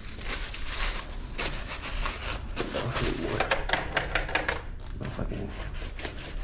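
Brown paper towel scrubbed back and forth over a basketball shoe's rubber sole in quick repeated strokes, with crinkling of the paper: wiping the dust off the sole to give it grip.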